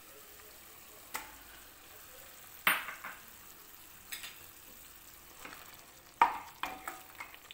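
Raw chicken pieces landing in a pan of frying yogurt masala over a faint steady sizzle, then a wooden spoon stirring them, with several sharp knocks and scrapes against the pan. The loudest come about two and a half seconds in and just after six seconds.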